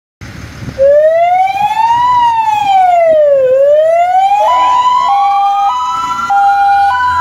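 Fire engine sirens. One wails, sliding slowly up and down in pitch. About four and a half seconds in, a second siren joins with a two-tone hi-lo, switching between its two notes roughly every half second.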